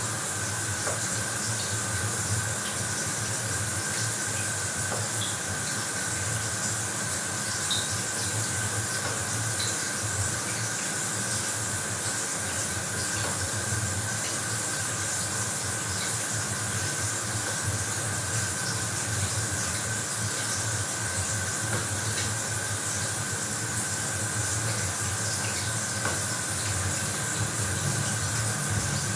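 Bathroom shower running, a steady spray of water falling and splashing, with the occasional faint drip.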